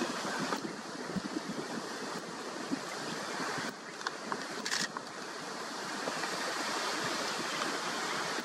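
River water splashing and sloshing around an African elephant's legs as it wades across the shallow river, over a steady rush of water.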